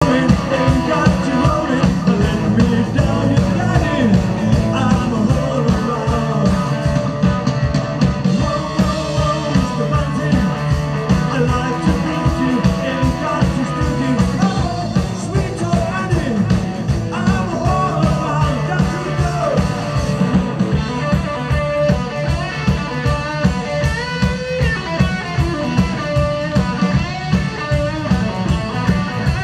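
Live rock band playing loudly: a singer over electric guitar, bass guitar and a drum kit keeping a steady beat.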